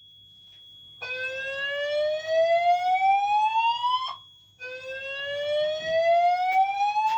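Fire alarm voice-evacuation sounders sounding the Dutch slow whoop evacuation tone after a manual call point is pulled: two long rising whoops, each sweeping up over about three seconds, the first starting about a second in and the second following a short break. A thin steady high tone runs alongside.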